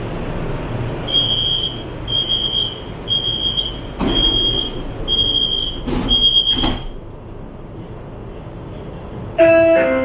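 Door-closing warning of a CSR Zhuzhou LRT train, heard from inside the car: six short high beeps about a second apart while the doors slide shut, with sharp knocks as they close. Near the end a chime of falling tones sounds.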